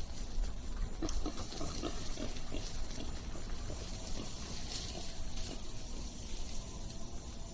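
Feral hogs splashing and scrambling through water, a quick run of splashes a few a second that thins out after a few seconds: the hogs scattering right after a bow shot.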